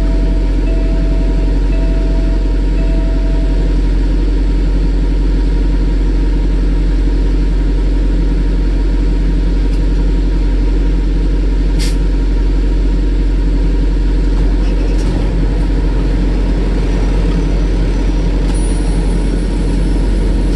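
Peterbilt semi-truck's diesel engine idling steadily, heard from inside the cab. Four short electronic beeps sound in the first few seconds, and a single sharp click comes about midway.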